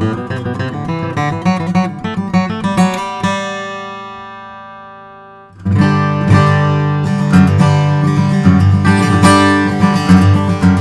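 Custom Martin 000 12-fret acoustic guitar with a quilted maple back, played solo. Picked notes come first, then a chord is left to ring and die away for about two seconds. Fuller strumming comes in sharply a little past halfway.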